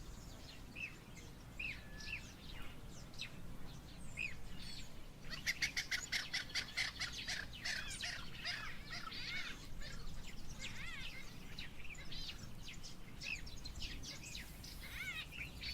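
Birds chirping and calling, a few scattered chirps at first, then a dense chorus of rapid, repeated chirps from about five seconds in that thins out toward the end.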